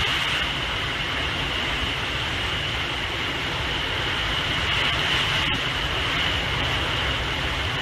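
Hurricane wind and driving rain, a steady roar, with the wind buffeting the microphone in a low, fluttering rumble.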